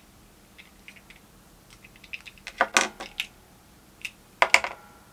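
Small hard plastic toy pieces clicking and clattering as they are handled, with scattered light ticks and two louder bursts of clatter, one about two and a half seconds in and one near the end.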